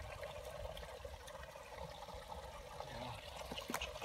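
Muddy water sloshing and trickling in a flooded concrete pipe trap as hands grope in it for catfish, with a couple of faint knocks near the end.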